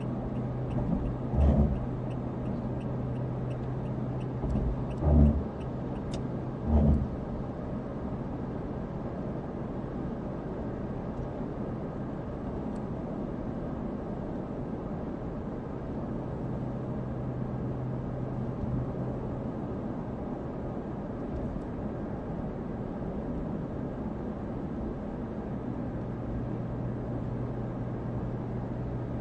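Road noise inside a moving car: a steady rumble of tyres and engine with a low hum. Three dull thumps come within the first seven seconds.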